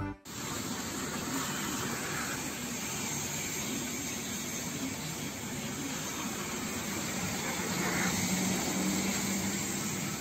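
Steady hiss of water spraying in a car wash bay, heard from inside a car, with a faint low hum underneath.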